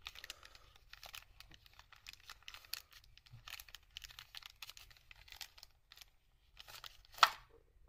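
Faint rustling and light clicks of the Time-Sert thread-repair kit's parts being handled, with one sharper click near the end.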